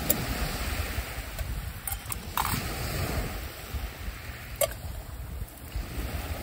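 Waves washing on the shore with wind buffeting the microphone. A few sharp clicks stand out: one at the start, one about two and a half seconds in with a short falling squeak, and one near five seconds.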